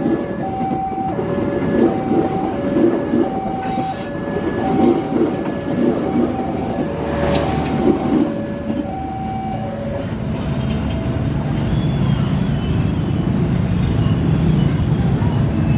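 Train running through a station with a steady rumble of wheels and cars. Over it a two-note electronic warning signal alternates high and low, one cycle about every second and a half, and stops about nine and a half seconds in. After that a deeper engine rumble swells toward the end.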